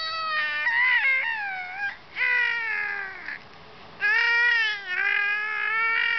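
A baby vocalizing in long, high-pitched drawn-out calls: three of them, the middle one sliding down in pitch.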